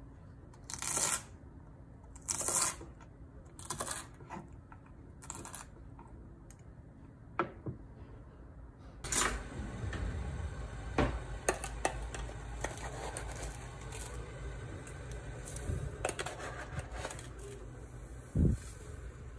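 Kitchen knife chopping chamnamul stalks on a wooden cutting board, a few slow single chops. About halfway through, this gives way to a steady low hiss with small clicks and a sharp knock near the end from pots on an induction cooktop.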